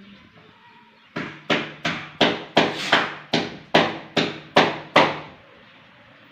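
A rapid series of about eleven sharp, evenly spaced knocks, roughly two and a half a second, each ringing out briefly; it starts about a second in and stops after about four seconds.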